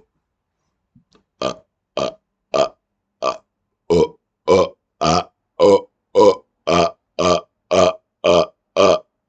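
A man burping on command, a rapid-fire series of about fourteen short belches made by swallowing air. A few come singly after a short pause, then about four seconds in they settle into a steady run of roughly two a second.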